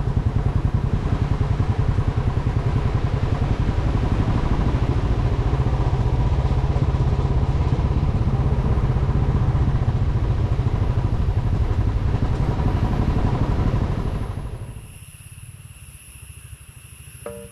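Motorcycle engine running steadily as the bike rides along, with wind and road noise. About 14 seconds in, it cuts off to a much quieter background with steady high-pitched tones.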